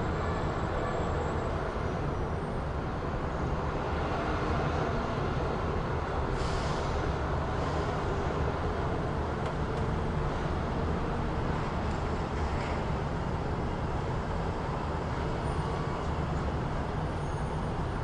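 City street traffic ambience: a steady, dense rumble of passing vehicles, with a short hiss about six seconds in.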